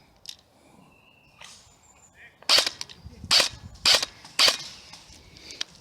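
Airsoft gun firing four single shots, each a sharp crack, spaced roughly half a second to a second apart, in the middle of the stretch.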